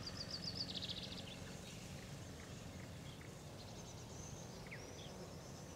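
Quiet outdoor ambience: a low steady hum with birds chirping, a quick run of chirps in the first second and a few more short calls about four to five seconds in.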